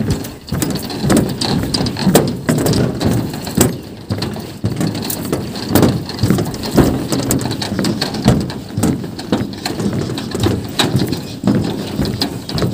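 Footsteps on a suspension footbridge deck, with irregular sharp clicks and knocks over a fluctuating low rumble.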